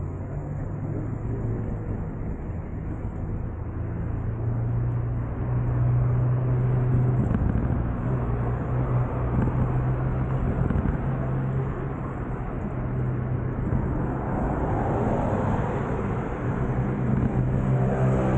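Riding noise from a bicycle-mounted camera: steady rushing wind and tyre noise, with a low steady hum underneath.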